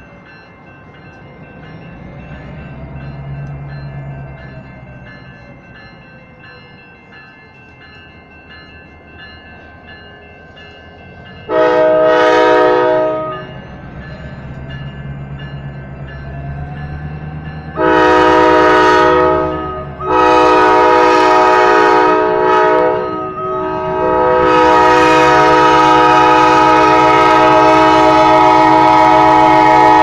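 Diesel locomotive air horn sounding four long blasts for the grade crossing, the last held on as the engine reaches the crossing. Under them the crossing signal's General Signals Type 2 electronic bell rings steadily, with a low locomotive rumble.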